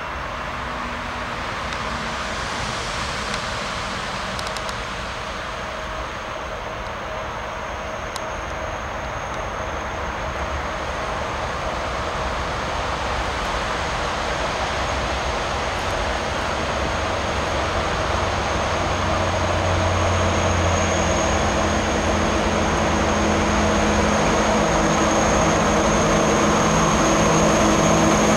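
Diesel locomotive hauling a freight train of hopper wagons as it approaches. Its engine note and the train's running noise grow steadily louder as it draws near.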